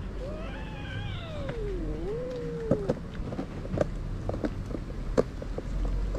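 A cat gives one long meow, about two and a half seconds, whose pitch falls and then rises again. It is followed by scattered small clicks of a cat eating dry food from a plastic bowl.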